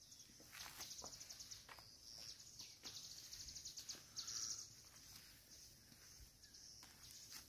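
Near silence, with faint high-pitched chirping trills that come and go several times.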